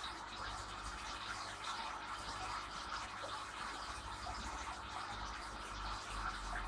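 Aquarium water circulation: a steady trickling, bubbling wash of the filter's water with a low hum underneath and faint scattered drip-like ticks.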